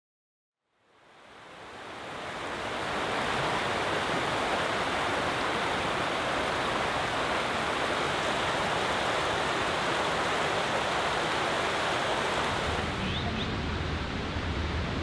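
Shallow mountain stream rushing over rocks: a steady watery hiss that fades in over the first two seconds. Near the end it drops away to a quieter, lower outdoor background.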